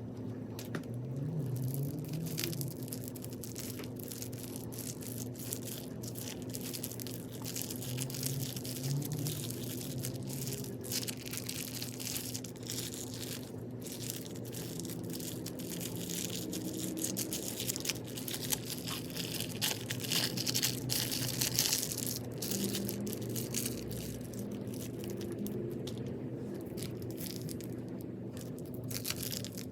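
Slime packed with crunchy beads being squeezed and kneaded by hand, giving a dense, irregular run of crackling crunches.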